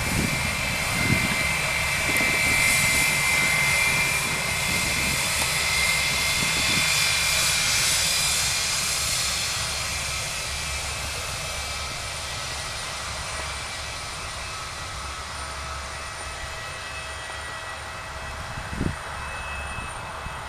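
Airbus A319 jet engines whining steadily as the airliner rolls away on the ground, the whine fading with distance. A brief thump comes near the end.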